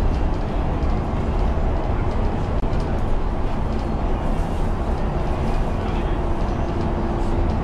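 Steady, loud low rumble of a vehicle in motion or running, with a faint steady hum joining about six seconds in.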